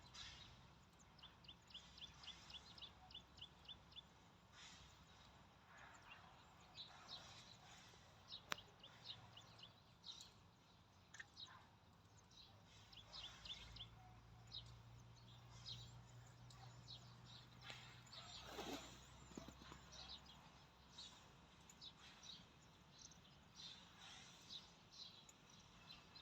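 Small birds chirping and trilling faintly over a quiet outdoor background, with many short high calls scattered throughout and one sharp click about eight and a half seconds in.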